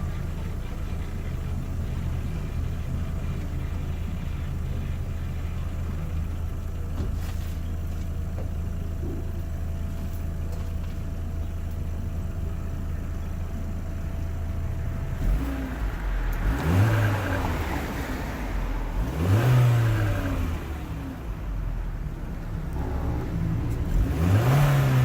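B5 Audi A4 engine idling steadily through its current exhaust, then revved three times, each rev rising and falling in pitch, starting about fifteen seconds in: a 'before' sound check ahead of an exhaust swap.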